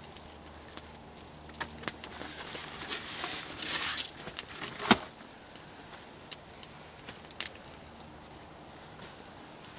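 Handling noise from a sheepskin rug being shaken out, with rustling and a soft swish of the fleece, among scattered small clicks and taps. A single sharp snap just before the middle is the loudest sound.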